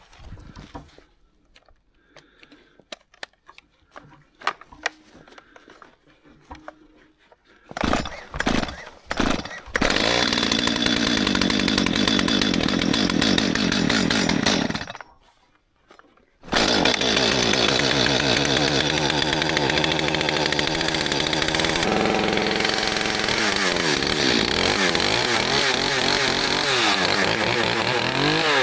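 Stihl MS211 two-stroke chainsaw being cold-started. A few short sputters come about eight seconds in, then it runs for about five seconds and dies. It starts again and keeps running steadily, warming up, with its pitch wavering near the end.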